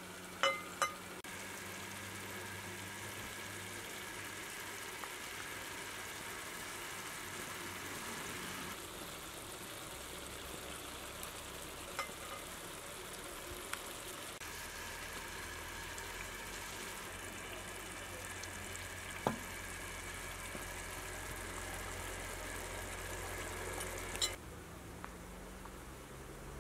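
Steady sizzling and bubbling of shami kebabs cooking in tomato sauce in a large pot. A few sharp clicks stand out, two of them right at the start.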